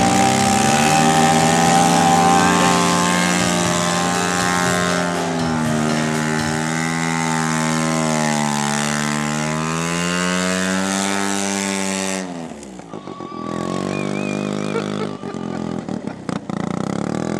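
The ATV's 650cc Rotamax rotary engine running hard at high revs, its pitch rising and falling over several seconds. About twelve seconds in the revs drop sharply as the throttle closes, and it runs on lower and unevenly, near idle.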